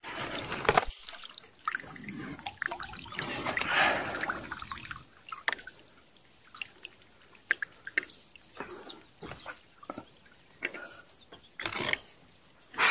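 Water dripping off a wet fishing line into a lake as it is hand-hauled, with small splashes at the surface and a longer splash about four seconds in.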